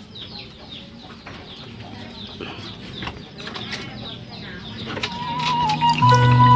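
Birds chirping: many short, quick falling chirps, repeated over and over. About five seconds in, background music with long held tones comes in and grows loud.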